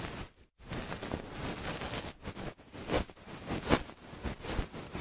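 Irregular soft brushing and rustling strokes right at the ear of a binaural dummy-head microphone: ASMR ear-cleaning sounds.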